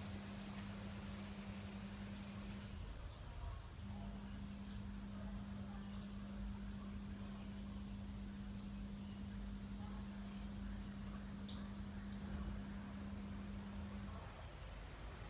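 Night insects trilling: a steady, high, rapidly pulsing trill. A low steady hum runs underneath and drops out briefly about three seconds in and again near the end.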